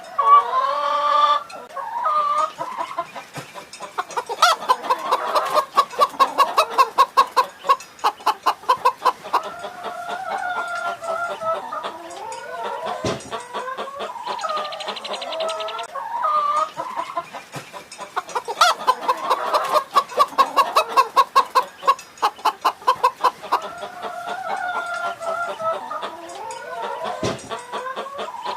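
Chickens clucking, with fast runs of short clucks between longer, drawn-out calls. The same stretch of clucking plays twice, once in each half.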